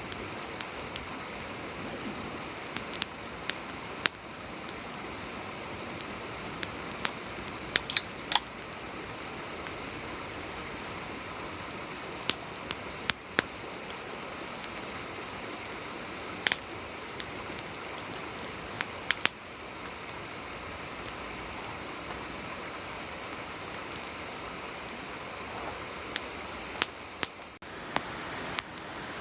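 Wood campfire burning: a steady hiss under irregular sharp crackles and pops, with a quick cluster of pops about eight seconds in.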